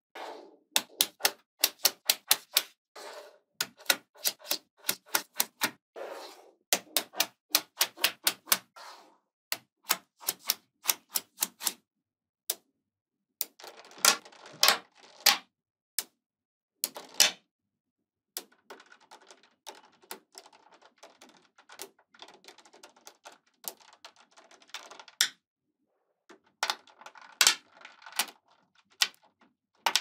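Small magnetic balls clicking sharply as they snap onto a model built of magnetic balls, in quick runs of clicks. About two-thirds of the way through there is a stretch of softer rattling and rustling with only a few clicks.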